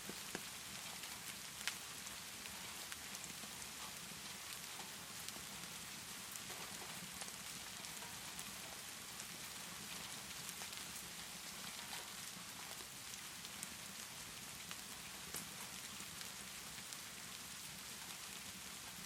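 Steady rainfall with the scattered crackles and pops of a wood fire, one sharper pop a little under two seconds in.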